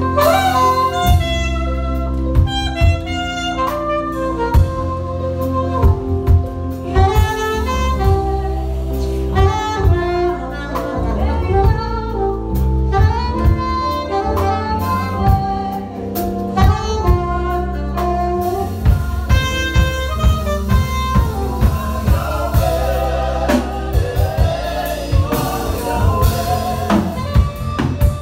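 Saxophone playing a jazzy melody, with some held notes wavering in vibrato, over a groove of drum kit and bass.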